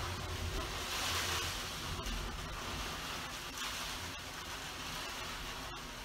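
Typhoon wind gusting outside, heard through a closed window as a steady rushing noise that swells about a second in.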